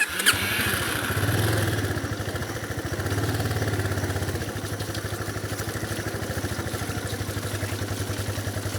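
Yamaha motorcycle engine running at low, steady revs, a fast, even train of exhaust pulses. It rises slightly about a second in and then holds.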